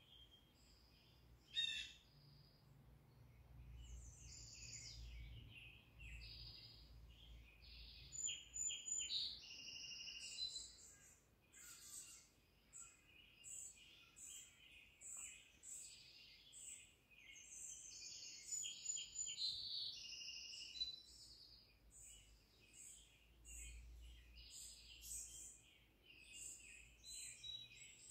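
Forest birdsong from a cat TV nature video on a television: several small birds chirping and singing in short, overlapping phrases, faint overall. One sharp click about two seconds in.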